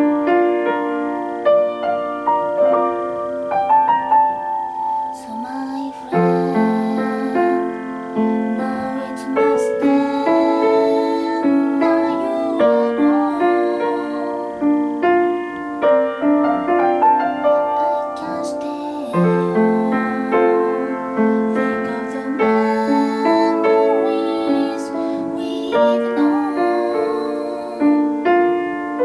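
Upright piano played continuously: a melody carried over chords, with notes struck one after another without a break.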